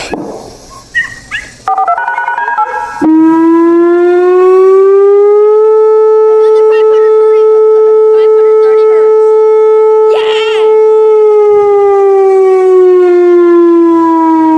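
Whelen WPS 2905 electronic outdoor warning siren sounding for a system test: about three seconds in it starts low, rises to a steady high tone, holds it for several seconds, then slowly falls in pitch again.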